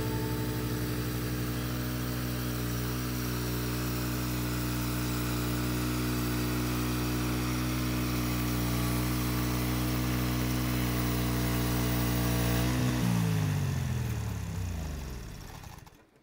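Gas engine of a Norwood HD36 portable bandsaw mill running at a steady speed while the saw head travels along the log, cutting it. About thirteen seconds in the engine is shut off and winds down, its pitch falling until it stops just before the end.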